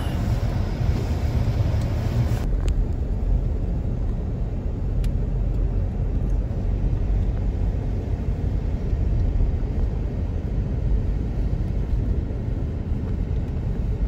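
Steady low rumble heard from inside a car's cabin as it drives on a snow-covered road: engine and tyre noise.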